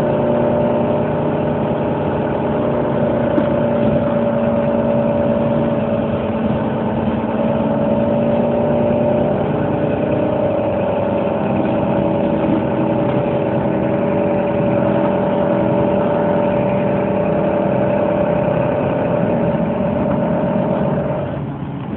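Engine running steadily with a constant drone. It grows quieter about a second before the end.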